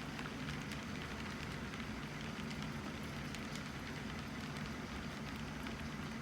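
Model train running on the layout's track: a steady motor hum with scattered light clicks.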